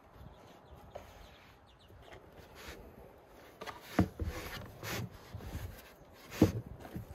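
Dough being kneaded by hand on a floured wooden board: soft pressing and rubbing with a few dull thumps as it is pushed and folded, the two loudest about four and six and a half seconds in.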